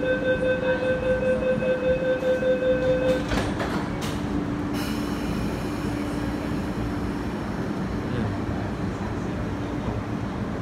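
Door-closing warning of an MTR East Rail MLR electric train, a rapid pulsing beep for about three seconds. The sliding doors shut with a few knocks, and then the train hums steadily as it begins to pull away.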